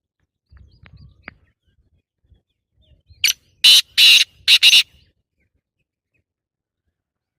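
Black francolin calling: a loud, harsh series of four grating notes lasting about a second and a half, with a couple of faint clicks a little before it.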